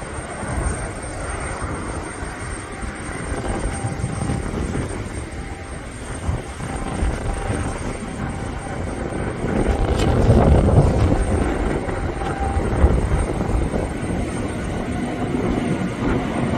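Boeing 787 jet engines running, a steady noise that swells about ten seconds in.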